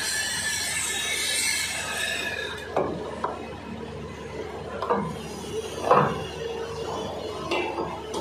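Stick-welding arc from a 316 stainless electrode crackling and hissing on stainless pipe, stopping about two and a half seconds in. Then scattered metal clanks and knocks as the electrode holder is set down on the steel bench and the pipe is handled, the loudest about six seconds in.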